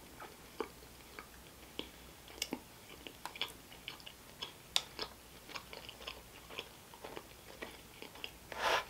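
Chewing a soft-baked iced sugar cookie with the mouth closed: a faint string of short, irregular mouth clicks, about two a second. A brief louder rush of noise comes near the end.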